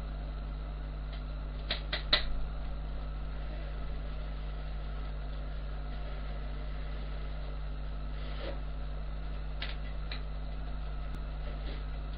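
Steady low hum with a few light clicks and knocks from kitchen utensils and containers being handled: a quick cluster of them about two seconds in, and a few fainter ones later.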